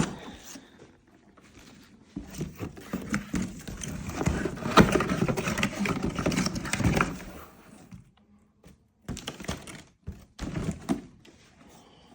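Hands handling a motorcycle helmet and its packaging: rustling with a run of light knocks and clicks, busiest from about two to seven seconds in, then a few short bursts near the end.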